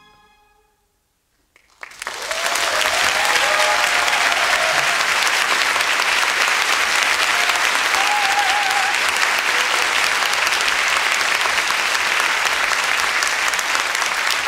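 The last held note of the soprano and orchestra fades out within the first second, then after a moment of silence a large concert audience breaks into applause about two seconds in, and the clapping goes on steadily.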